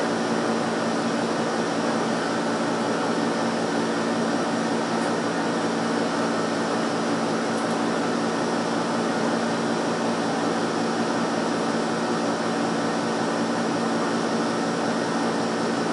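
Steady mechanical hum with a rush of air over it, unchanging in level, like a running fan or air conditioner.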